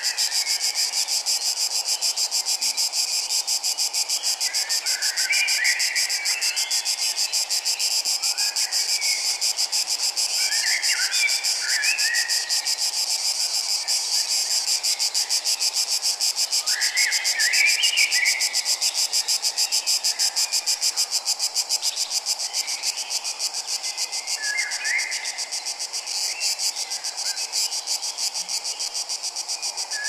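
A steady, high-pitched, rapidly pulsing trill of insects such as crickets. A songbird sings short phrases about every five or six seconds over it.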